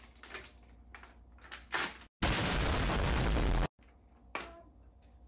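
A loud, harsh burst of noise about a second and a half long, starting and stopping abruptly, in the middle of quiet kitchen handling clicks.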